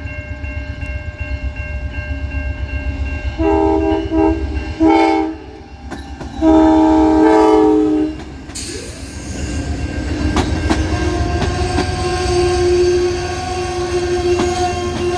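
Amtrak diesel locomotive's chord horn sounding three blasts over the engine's rumble: about a second long, then a short one, then a longer one of about a second and a half. The train then passes with the rush and clatter of wheels on the rails and a steady tone over it.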